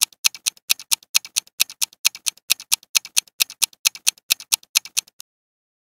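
Countdown-timer sound effect of a clock ticking rapidly and evenly, stopping abruptly about five seconds in as the answer time runs out.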